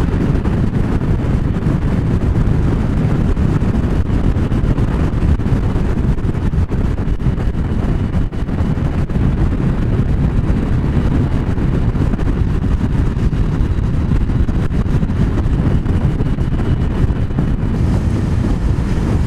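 Steady wind rushing over the microphone of a motorcycle riding at motorway speed, with road and engine noise underneath.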